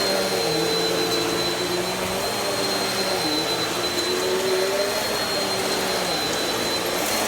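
Vacuum cleaner running steadily, a constant high whine over the motor's hum, the lower pitch wavering slightly as the load changes.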